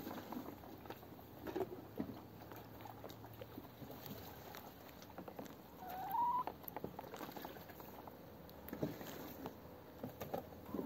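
A hen and a Muscovy duck pecking at a halved fruit on dry ground: irregular soft pecking taps and nibbling. One short rising bird call comes about six seconds in.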